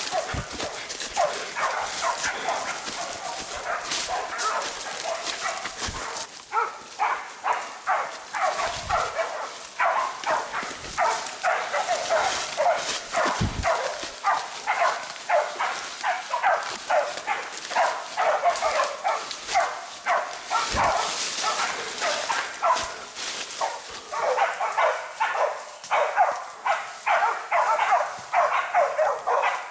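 Bailing pig dogs barking hard and fast at a wild boar they have bayed, a rapid string of repeated barks. The barking is sparser at first and becomes near-continuous about six seconds in.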